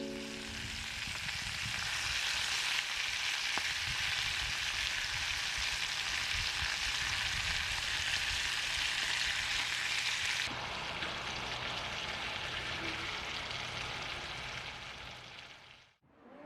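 A steady hiss of noise with no pitch to it. It drops a little in level abruptly about ten seconds in and fades out near the end.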